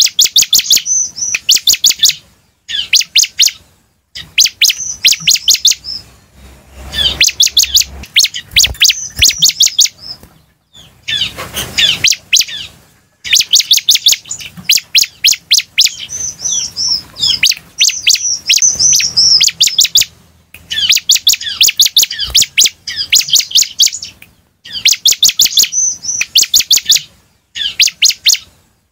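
Bar-winged prinia (ciblek) singing: bouts of rapid, sharp, high chirping notes, each bout two to three seconds long, repeated with short pauses between.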